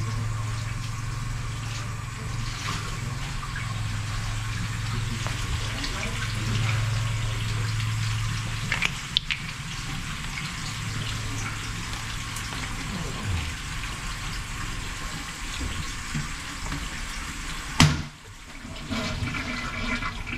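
A toilet running: water hissing steadily as the tank fills, with a low hum that fades out about two-thirds of the way through. Near the end there is a sharp click and the water sound drops for a moment.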